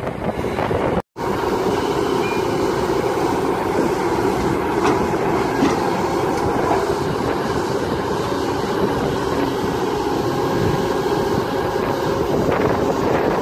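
Kobelco SK200-10 hydraulic excavator's diesel engine running steadily under load while it digs and swings, a continuous mechanical drone. A brief cut to silence about a second in.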